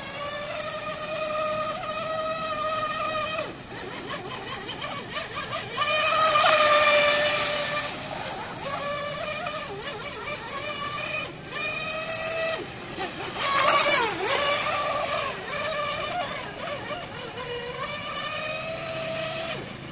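Radio-controlled Mono 1 X-15 mono hull boat with a Tenshock brushless motor on a 3S LiPo, running at speed: a high electric whine that rises and falls with the throttle. It is loudest about six to seven seconds in and again near fourteen seconds, where the pitch dips sharply for a moment.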